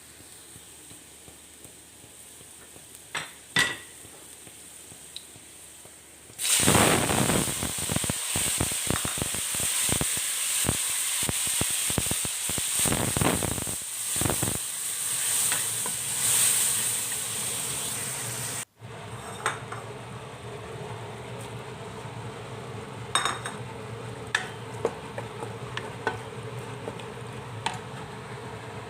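Food frying in hot oil in a pan: a few light clicks, then a loud sizzle starts suddenly about six seconds in as food goes into the oil. After an abrupt cut, a quieter steady sizzle goes on with utensil clinks against the pan.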